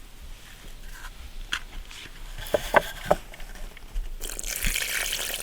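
Crunching and crackling handling noises: a few sharp snaps in the middle, then a dense rustling crunch near the end.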